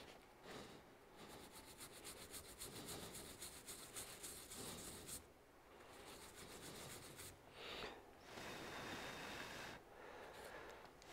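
Faint scratching of toothbrush bristles scrubbing a laptop motherboard in quick back-and-forth strokes. After a short pause about five seconds in, softer rubbing follows as a paper towel is worked against the brush and board.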